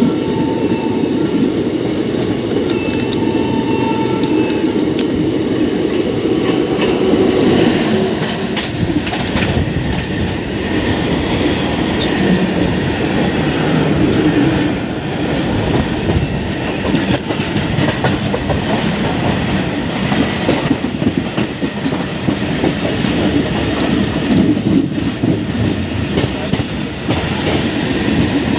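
Indian Railways goods train of open wagons running past close by: a steady rumble with wheels clattering over the rail joints. A train horn sounds during the first few seconds.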